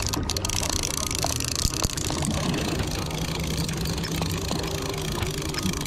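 A large conventional saltwater reel being cranked by hand to retrieve line, heard with a steady low rumble throughout.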